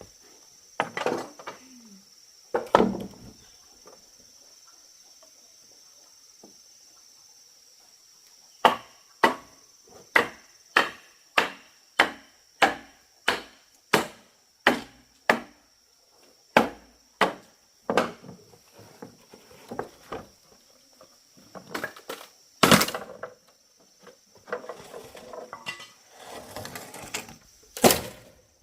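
Blade chopping into wood or bamboo: a steady run of sharp strokes, about one and a half a second, then a few harder, more scattered blows near the end. Insects shrill steadily behind.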